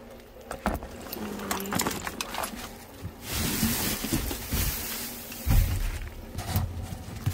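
Plastic bags and cardboard boxes rustling and knocking as they are handled in a dumpster. From about three seconds in comes an even hiss of heavy rain, with low thumps of the phone being handled.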